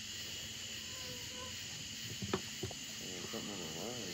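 Steady chirring of night insects, with two sharp knocks about a third of a second apart a little past halfway, then a low voice muttering briefly near the end.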